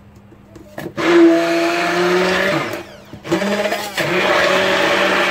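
Immersion hand blender running in a plastic beaker, puréeing a wet green chutney of coriander, tomato and chilies. It starts about a second in, stops for a moment just past the middle, and starts again.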